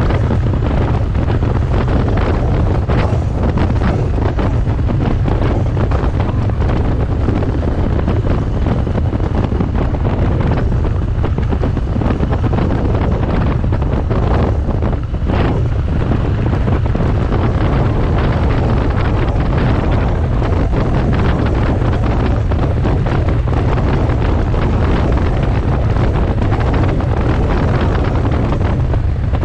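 Wind noise on the microphone of a moving Triumph 900cc motorcycle, over a steady low rumble from its engine and road at a constant cruising speed.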